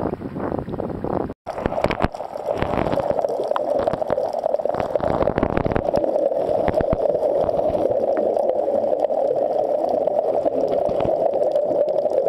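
For about a second and a half, water laps at the surface with wind on the microphone. Then comes steady underwater sound from scuba divers: a muffled rush with bubbling and many small clicks, from the regulators' exhaled bubbles.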